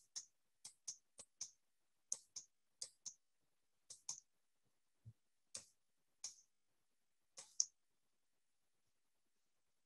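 Sharp clicks at a computer, mostly in quick pairs about a quarter second apart, stopping about eight seconds in. One soft low thump about five seconds in.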